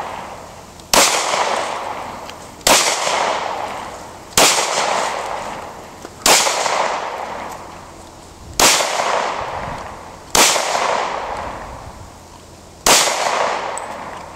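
Glock 23 pistol in .40 S&W fired seven times in slow single shots about two seconds apart, each shot trailing off in a long echo.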